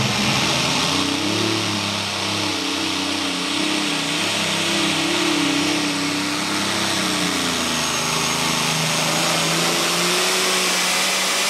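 Modified pulling tractor's multiple supercharged engines at full throttle hauling the sled, a loud, steady engine din whose pitch wavers and sags somewhat about two-thirds of the way through.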